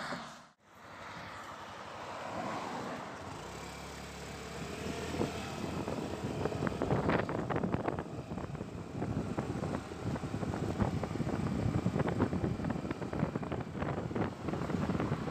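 Motorcycle riding at highway speed: steady engine and road noise with wind buffeting the microphone, gustier from about five seconds in. The sound cuts out briefly about half a second in.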